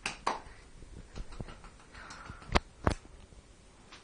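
A cat shifting and sitting up on a kitchen pulley clothes airer, making a series of sharp knocks and clicks; the two loudest come close together about two and a half seconds in.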